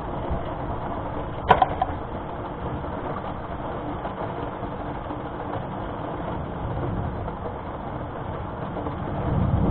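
Steady rain during a thunderstorm, with a low rumble of thunder building near the end. A short sharp click about one and a half seconds in.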